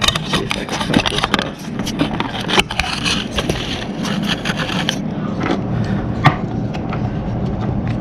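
Plastic RC truck axle and differential parts handled and knocked against a wooden tabletop: a run of scrapes, clicks and light knocks, busiest in the first five seconds, with one sharper knock a little after six seconds.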